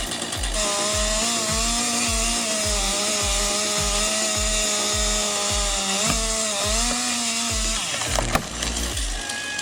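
Chainsaw cutting through wood, its engine running steadily under load from about half a second in until about eight seconds in, with its pitch dipping slightly now and then. Background music with a steady beat of about two thumps a second plays underneath.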